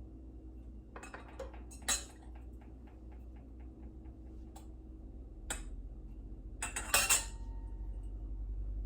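Sharp clinks and taps of metal utensils against glass half-pint canning jars as they are filled with hot jam, with a run of quick light ticks in the middle and a louder cluster of clinks near the end, over a low steady hum.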